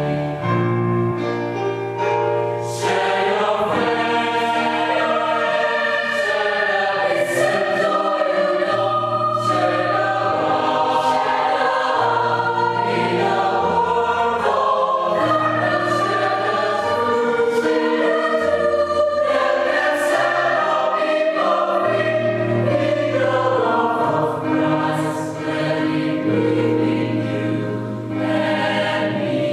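Mixed choir of men and women singing a sacred song in parts, with long held low bass notes beneath the upper voices.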